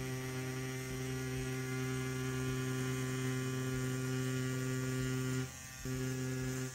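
CNC P6 rotary tattoo pen running at about 9 volts, a steady electric hum while lining on silicone practice skin. It cuts out briefly about five and a half seconds in, starts again, and stops near the end.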